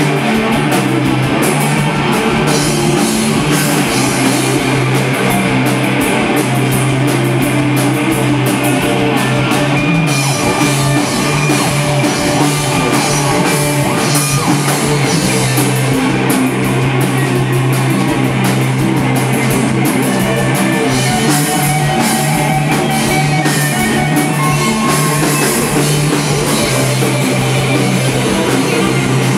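Stoner rock band playing live and loud: electric guitars, bass guitar and drum kit together, with a heavy, sustained low end.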